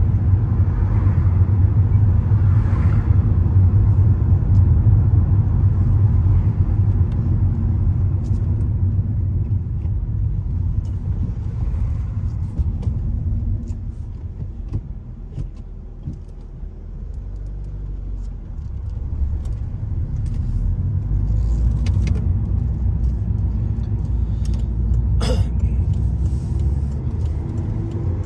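Road and engine rumble heard from inside a moving car. The rumble is steady, eases as the car slows for a roundabout about halfway through, then builds again as it pulls away. A single sharp click comes near the end.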